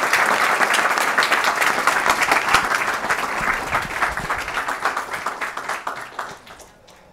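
Audience applauding: a dense round of clapping that thins out and dies away near the end.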